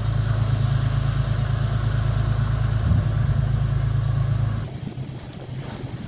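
Boat engine running steadily with a low, even hum as the boat churns out through the channel. About three-quarters of the way through it cuts to a much quieter wash of wind and water.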